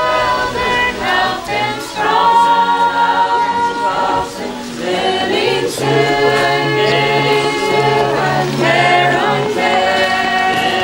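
A choir singing a cappella, several voices holding long, drawn-out notes.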